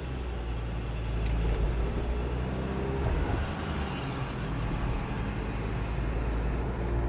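Mazda CX-5's 2.0-litre petrol engine pulling under acceleration at low revs, about 1700 to 2300 rpm in a high gear, with a rattling, gurgling noise coming in a few seconds in.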